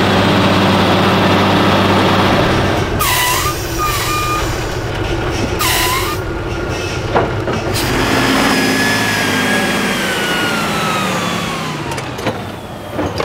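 Heavy off-road trial trucks' diesel engines running, with loud stretches of air hiss a few seconds in and a whine that falls slowly in pitch in the second half.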